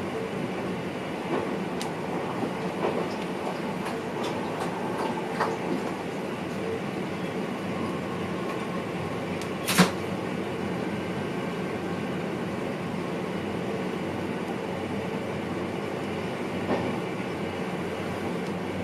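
Steady running noise inside the cab of an NS VIRM double-deck electric train, with light knocks and rattles in the first few seconds and one sharp loud click about ten seconds in.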